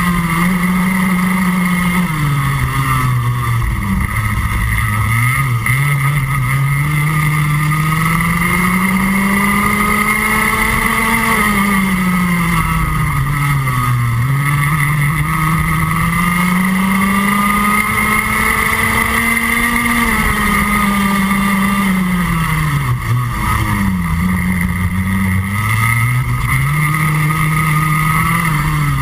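Rotax Max Junior 125cc two-stroke kart engine at racing speed, heard on board the kart. Its revs climb along each straight and drop sharply as the kart slows for a corner, three times over.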